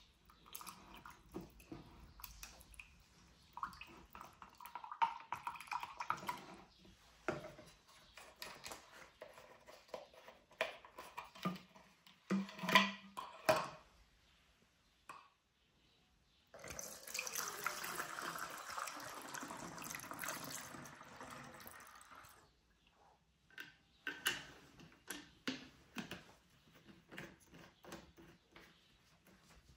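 Liquid stirred with a wooden stick in a plastic measuring jug, with scrapes and taps. Then liquid poured through a plastic funnel into a plastic bottle, a steady pour lasting about six seconds past the middle. Near the end, short plastic clicks as a trigger spray head is screwed onto the bottle.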